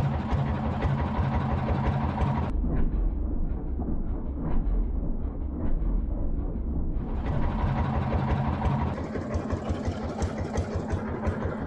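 Small boat's engine running steadily at trolling speed. For a few seconds in the middle the sound goes muffled, leaving mostly the low rumble.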